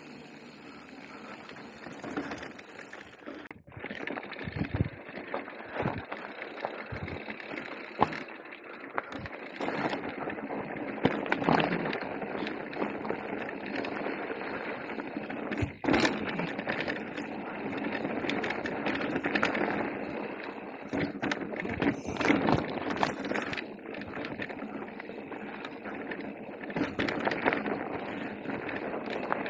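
Radon Deft 8.0 electric mountain bike riding a rocky trail: tyres crunching over stones, with frequent sharp knocks and rattles from the bike.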